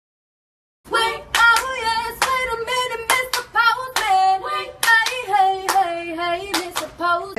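Silence for almost a second, then a voice singing a slow tune over irregular hand claps.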